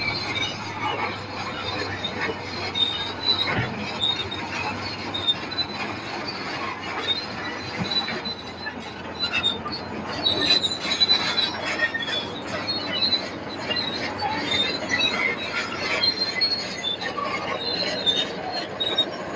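Komatsu D155 crawler bulldozer at work, its steel tracks squealing and clanking continuously over the engine's drone.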